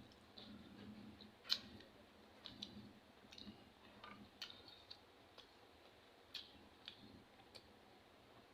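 Faint eating sounds from someone eating cooked moringa (malunggay) pods: scattered small clicks and chewing, the sharpest click about a second and a half in.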